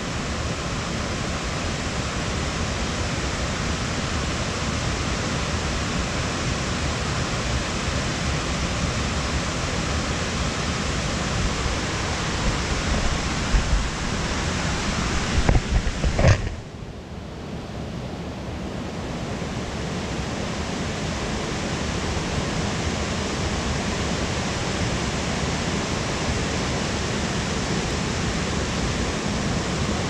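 Steady rush of a nearby cascading mountain creek. About halfway through come a few low knocks and bumps as the camera is handled; the rushing then sounds dulled for a couple of seconds before it returns to full.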